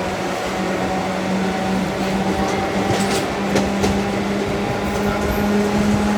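Express train of ICF coaches behind a WAG5 electric locomotive, running and picking up speed. There is a steady rumble and a hum that slowly rises in pitch, and a few sharp clicks from the track a little past halfway.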